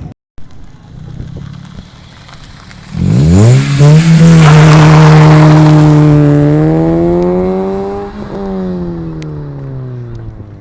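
Toyota Corolla with an aftermarket HKS exhaust muffler accelerating hard about three seconds in. The exhaust note sweeps sharply up in pitch, holds loud while climbing slowly, then falls steadily in pitch as the throttle eases. Before the acceleration there is only lower engine and road noise.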